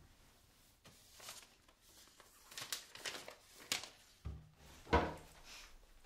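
Rummaging through a kitchen cupboard: a run of short rustling and scraping sounds, then two knocks about four and five seconds in, the second the loudest.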